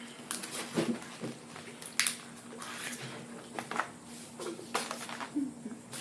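Eating and food-handling noises: a handful of short clicks and rustles, such as wrappers and containers being handled and fried food being picked at, spaced irregularly.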